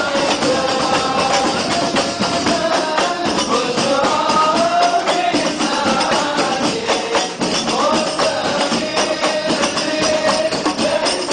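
An ensemble of rebana frame drums beaten in a fast, dense, steady rhythm, with a group of voices singing devotional chant over them.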